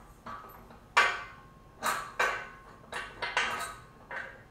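Steel weight-bench parts and bolt hardware clinking and knocking as a washer and bolt are fitted through a bracket by hand: a run of about eight separate sharp clinks, each dying away quickly.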